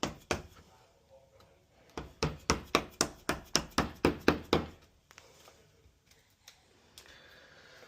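Hammer striking a wood chisel, cutting out a mortise in a wooden door. One blow comes at the start, then a quick run of about a dozen sharp taps about two seconds in.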